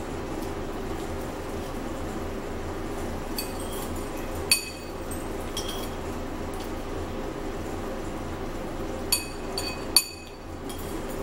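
A metal spoon clinking against a bowl during a meal: about six scattered single clinks, each with a short high ring, the loudest about four and a half seconds in, over a steady low hum.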